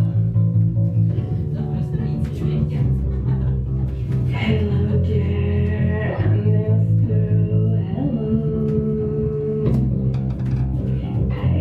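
A rock band playing live, with distorted guitar and bass guitar on sustained low chords that change every couple of seconds.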